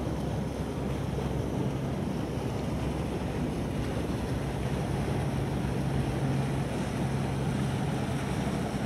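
Small fishing boat's engine, a steady low drone carried across the water, with wind noise on the microphone.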